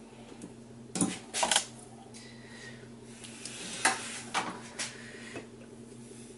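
Metal tools clinking and clattering on a workbench as a hand file is picked up: a string of sharp knocks with a short scraping stretch in the middle.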